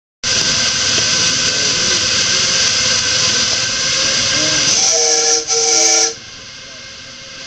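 A 7½-inch gauge live steam locomotive vents steam with a loud, steady hiss. About five seconds in, its steam whistle gives two short chord blasts, and the hiss and whistle cut off together just after six seconds.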